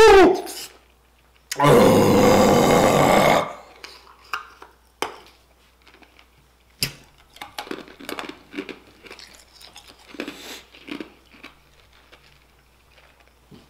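A man's short cry falling in pitch at the very start, then a loud, rough burp lasting about two seconds. After it come quiet chewing and small mouth clicks.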